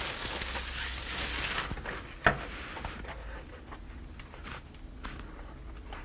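Thin plastic shopping bag crinkling as a hat is drawn out of it for about two seconds, then a single sharp tap, then faint rustling as the straw hat is handled.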